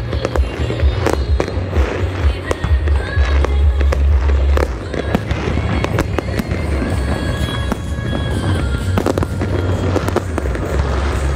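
Fireworks bursting and crackling, many sharp bangs in quick succession, over loud music with a heavy pulsing bass.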